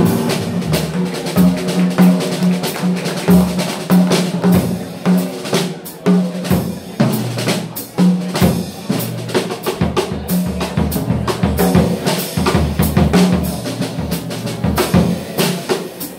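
Live jazz with the drum kit to the fore: fast snare, bass drum, rimshot and cymbal strokes, over a low note that keeps recurring.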